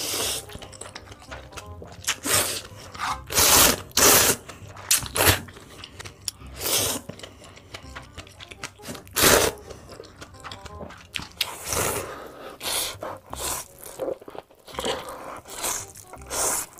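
Ramen noodles being slurped and chewed close to the microphone: a string of loud slurps, several about half a second long, with shorter chewing sounds between them.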